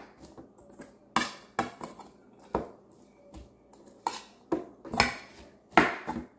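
Metal spoon stirring coleslaw in a stainless steel bowl: irregular clinks and scrapes of the spoon against the bowl's side, with soft rustles of shredded cabbage between.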